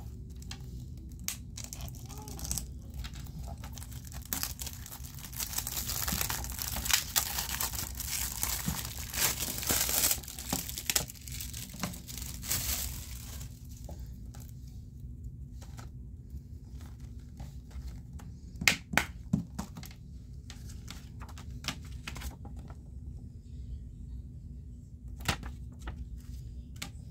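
Plastic shrink-wrap crinkling and tearing as it is peeled off a Blu-ray case, dense for several seconds, followed later by a few sharp clicks of the plastic case being handled and snapped open.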